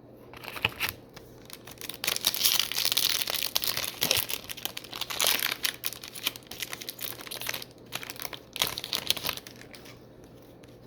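A trading card pack's wrapper crinkling and tearing as it is ripped open. It comes in several spells of crackling separated by short pauses.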